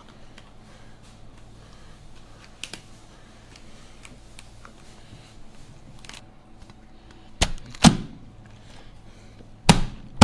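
Kitchen scissors snipping at a Boston lobster's hard underside shell, with faint clicks. Near the end, a cleaver strikes the lobster on a plastic cutting board in several heavy chops.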